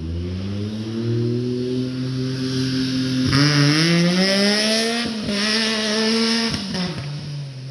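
Yamaha YXZ 1000R side-by-side's three-cylinder engine through a Two Brothers aftermarket exhaust, accelerating hard with its note climbing. The climb breaks with a short drop at each upshift, three times, and the note settles lower near the end.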